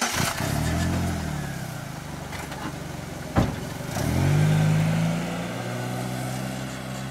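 A compact sedan's engine comes on suddenly and revs up and down, then a single sharp knock. The engine revs up again as the car pulls away and drives off, settling to a steadier note.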